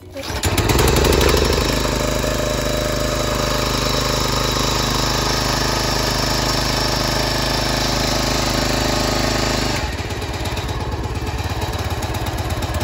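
Briggs & Stratton 675 Series 190 cc lawnmower engine on a log splitter starting at once and running steadily, now that its starting spring is wired so it always gets spark. About ten seconds in the sound drops and changes.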